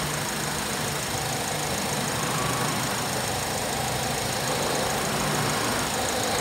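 Holden Captiva's 2.4-litre Ecotec four-cylinder petrol engine idling steadily, heard with the bonnet open.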